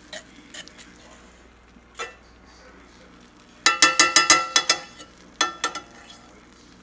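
Metal fork scraping and clinking against a cast iron skillet while stirring thick flour gravy. Scattered single clinks, then a quick ringing run of them about four seconds in, over a faint sizzle from the pan.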